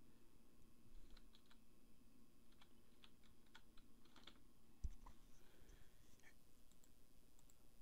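Faint computer keyboard typing: a run of irregular keystroke clicks, with a single low thump about five seconds in.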